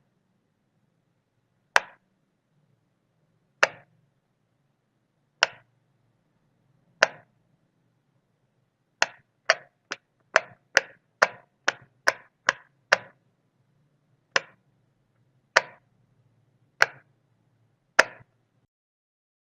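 Light switch being flicked on and off, each flick a single sharp click. The clicks come about every two seconds at first, then in a quick run of about ten at a little over two a second, then spaced out again.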